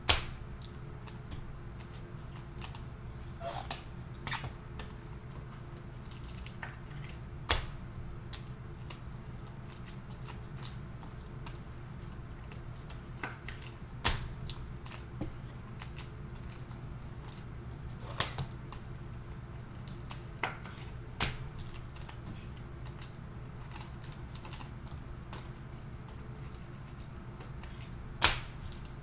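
Occasional sharp single clicks from a computer keyboard, about a dozen at uneven spacing, over a steady low hum.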